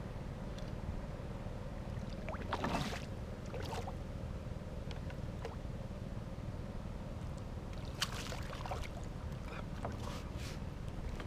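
Water splashing around a kayak: a handful of short, irregular splashes over a steady low rumble.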